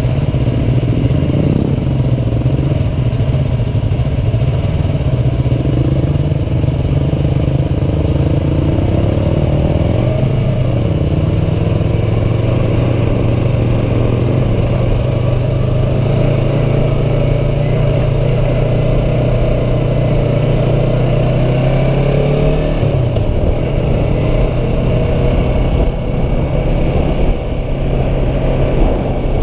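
Sport motorcycle engine running at moderate revs while riding, its pitch mostly steady, with a short dip in revs a little over twenty seconds in.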